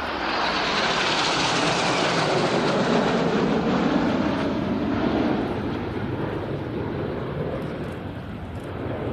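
Formation of BAE Hawk T1 jets flying past, their Adour turbofan engines making a steady roar. The roar swells to a peak in the middle and then fades, its pitch dropping as the jets pass by.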